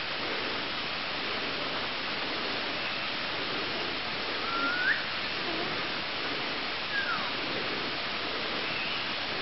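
Tropical forest ambience: a steady rushing hiss with two short whistled notes, one rising about halfway through and one falling about two seconds later.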